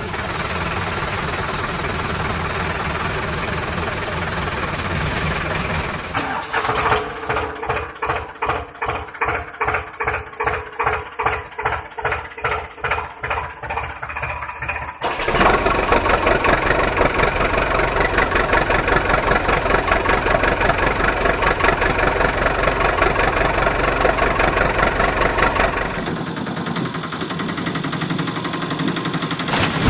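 Vehicle engine sounds: a steady running engine, then a chugging stretch of even pulses about two or three a second, then a louder steady run from about halfway through.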